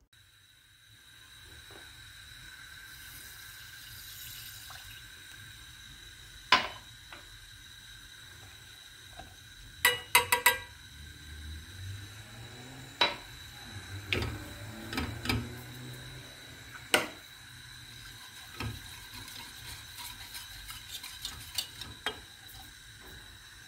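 A wire whisk stirring milk pudding mixture in a stainless steel pot, with irregular sharp clinks of metal and glass against the pot over a steady faint hum.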